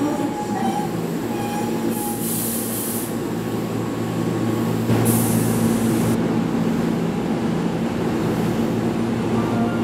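Keihan electric trains at a station platform: a steady hum of train equipment, with two short hisses about two and five seconds in.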